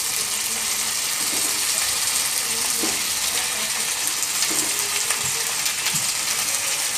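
Drumstick pieces, onion and tomato sizzling steadily in hot oil in a stainless steel kadai, with a light crackle.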